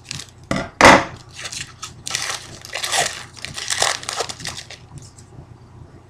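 Foil trading-card pack being cut open with scissors and torn apart, its wrapper crinkling and crackling, with one sharp loud crack about a second in.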